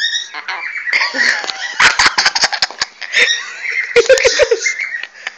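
Pet parrot calling with shrill, pitch-bending squawks and screeches, mixed with clusters of sharp knocks about two seconds in and again about four seconds in.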